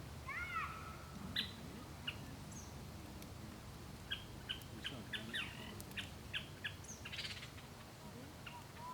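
Small birds chirping: a couple of arching calls near the start, then a run of short, evenly repeated chirps through the middle, over a low steady background noise.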